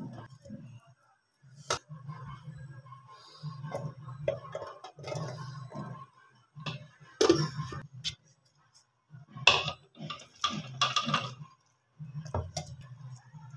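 Hands scraping food out of a stainless-steel mixer-grinder jar and handling steel bowls, with handling rustles and several sharp metallic clinks spread through.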